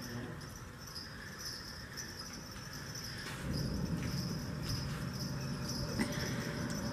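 Crickets chirping steadily in a continuous, pulsing high trill. A low rumble joins about halfway through.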